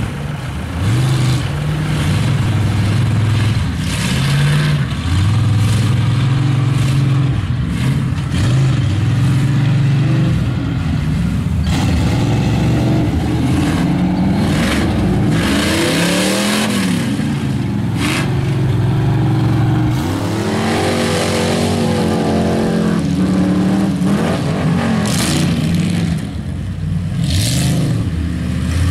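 Engines of lifted mud trucks revving hard and easing off again and again while the trucks churn through a mud pit, the engine pitch rising and falling every second or two.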